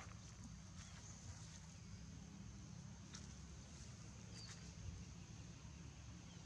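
Near silence: faint outdoor background with a low rumble, a few faint ticks and one brief high chirp about four and a half seconds in.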